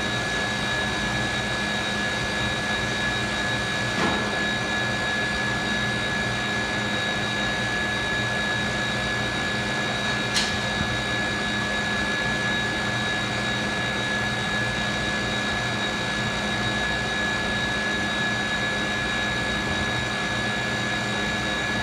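Steady whir of running kitchen machinery, a fan or compressor with a constant high whine over it. Two short clicks, about four and ten seconds in.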